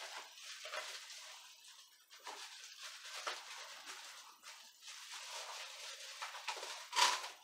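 Faint rustling and light knocks of small objects, such as plastic cups, being handled and moved about on a workbench, with a louder clatter near the end.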